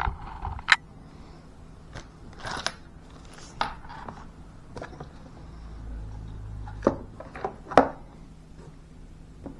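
Scattered sharp metallic clicks and short scrapes of a folding pocket knife being handled, the loudest pair of clicks near the end.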